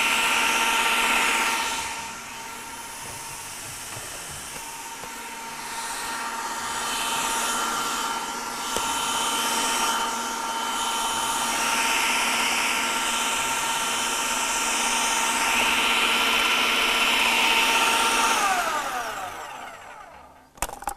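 Electric food processor with a blender jug running, mixing a runny cake batter: a steady motor whine whose loudness swells and eases. Near the end it is switched off and winds down with a falling whine.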